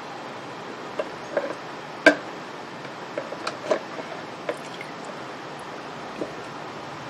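Scattered light clicks and knocks from a plastic container and a hand tool being handled as parts are fished out of an acetone soak, over a steady background hiss. The sharpest knock comes about two seconds in.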